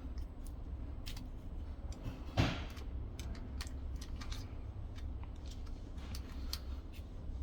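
Hard plastic snap-fit clip of a smart lock's housing being pried with a flat-blade screwdriver: scattered small plastic clicks and one loud sharp snap about two and a half seconds in as the clip gives.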